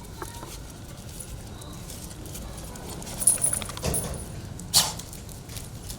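Dogs eating, with chewing and smacking clicks for a second or so midway and one short, sharp sound near the end.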